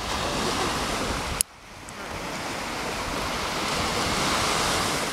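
Small waves breaking and washing up a sandy beach. About a second and a half in there is a sharp click and the sound drops away suddenly, then the surf noise builds back up.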